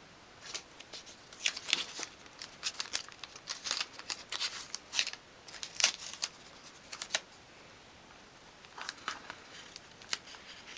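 Masking tape being pulled off the roll, torn and handled: a run of short, papery crackles and tears, with a lull about two-thirds of the way through.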